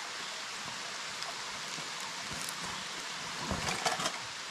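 Steady rushing hiss of a shallow rocky creek running. Near the end come a few short rustles and clicks of a backpack and gear being handled.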